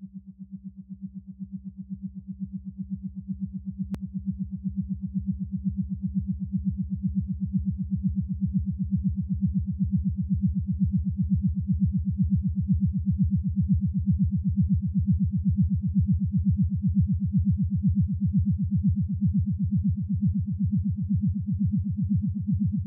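Low synthesizer drone with a rapid, even pulse, fading in over the first several seconds and then holding steady.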